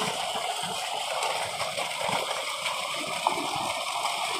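Tube well outlet pipe pouring a strong jet of water into a concrete tank and over a person standing under it: a steady rush and splash of falling water.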